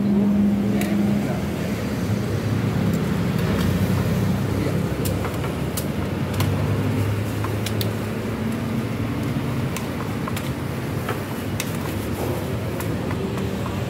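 Steady rumble of road traffic with vehicle engines passing, mixed with repeated sharp clinks of metal tongs and a wire noodle strainer against a big pot of boiling water.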